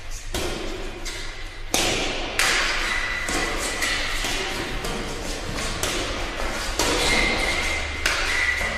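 Intro sound effects for an animated title: a series of sudden thuds and swooshing hits, about five, each trailing off in a hiss, with light music underneath.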